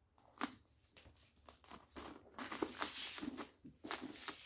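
Rustling and crinkling of the protective wrapping as it is worked along and pulled off a handbag's strap, with a few small clicks.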